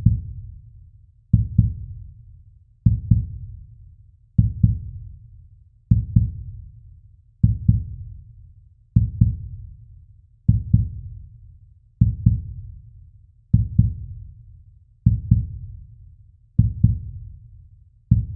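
Slow heartbeat sound effect: a steady lub-dub double thud, deep and low, repeating about every second and a half (roughly 40 beats a minute), about a dozen beats in all.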